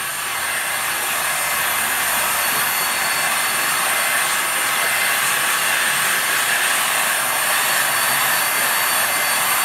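Electric heat gun running steadily, a constant rush of air from its fan as it blows hot air over a freshly sprayed liquid powder-coated plate. It grows slightly louder in the first second.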